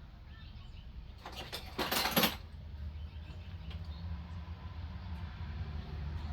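Hand-work noises on a lawn tractor: a short scraping, rustling burst about a second and a half in and a few faint ticks, over a steady low hum.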